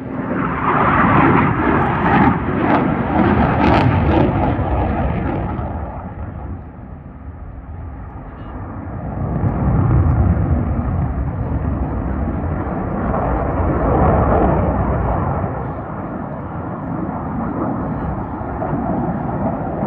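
CF-18 Hornet fighter jet's twin turbofan engines, a loud jet noise that swells and fades as the jet passes. It is loudest in the first few seconds, dips, then swells again about ten seconds in.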